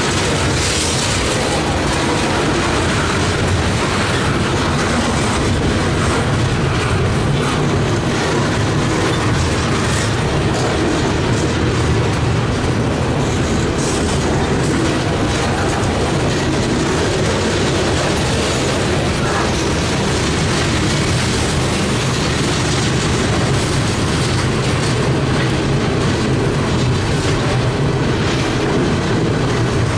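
Freight train of two-bay covered hopper cars rolling past close by: a steady rumble with wheels clicking over the rails.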